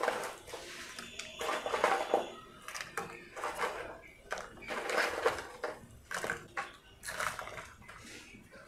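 Dried chiles rustling and crackling in a plastic bowl as handfuls are scooped out and dropped into a pot of boiling water, in a series of short, uneven bursts.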